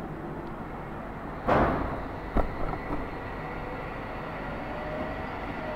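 Motor-driven target carrier of a shooting range running along its rails to bring the target back to the firing point: a steady mechanical rumble with a faint whine that rises slightly in the second half. There is a knock about one and a half seconds in.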